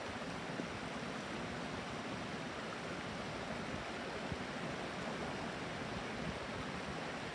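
Shallow, clear stream babbling over and between stones, a steady rushing with water spilling through a low line of rocks.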